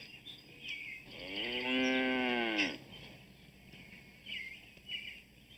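A cow moos once, a single drawn-out call of nearly two seconds about a second in, its pitch rising a little and then falling away at the end.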